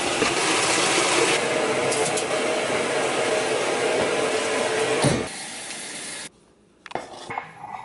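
Water rushing steadily into a top-loading washing machine as it fills. About five seconds in it gives way to a quieter run of tap water into a pot, which stops shortly after, followed by a few light knocks.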